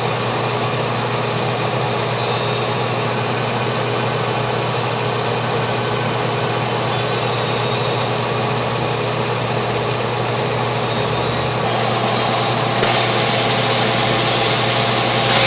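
DEL SRC overcapper and its cap elevator loader running: a steady machine hum and whir with faint regular ticking about once a second. About 13 seconds in, a louder hissing rush joins.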